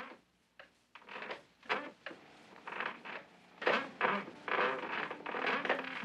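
Shoes tapping and scuffing on wooden deck boards, irregular at first and growing busier and louder.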